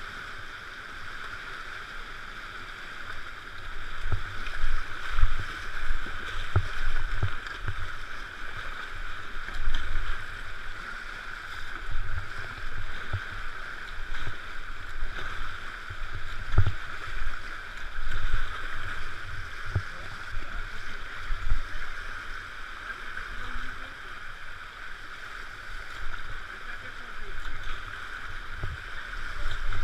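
Whitewater rushing steadily around a kayak running river rapids, with irregular low thumps from about three seconds in as the hull and paddle hit the waves.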